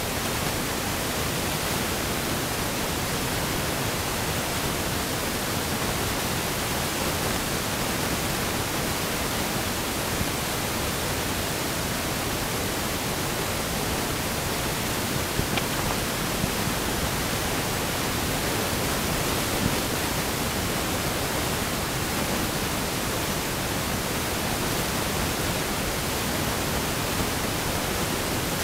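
Steady, even hiss throughout, with a few faint clicks of a lineolated parakeet's beak picking at millet in a ceramic dish.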